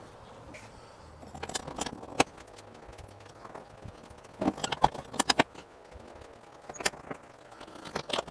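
Sharp clicks, knocks and light rattles in short irregular clusters, from a Jeep Wrangler TJ soft top's frame and hardware being handled and fitted into place.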